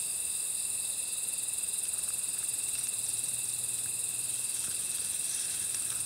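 Steady chorus of night insects such as crickets, trilling high-pitched without a break.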